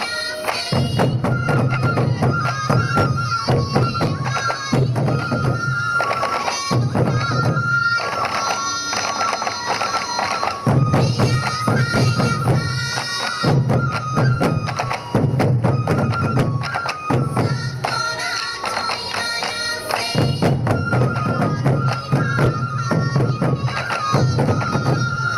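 Sansa Odori festival music: taiko drums beaten in a fast, driving rhythm under a yokobue (Japanese bamboo transverse flute) playing a high, repeating melody.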